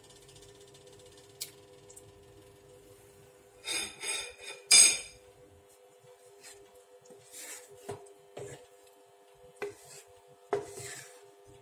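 Wooden spatula scraping and knocking against a nonstick pan while stirring a thick curry, in uneven strokes. The loudest scrapes come in a cluster about four to five seconds in, followed by shorter, scattered scrapes.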